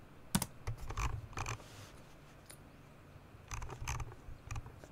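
Scattered clicks of a computer keyboard and mouse, in two short runs with a quieter pause of about a second and a half between them.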